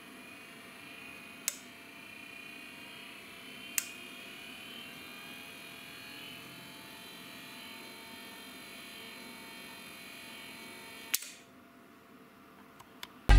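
Home-built milling machine power feed running: a DC wiper motor driving a worm gear with a plastic worm wheel. It makes a steady, faint hum with a light high whine, with two sharp clicks in the first four seconds. A click comes about eleven seconds in, and then the sound cuts off.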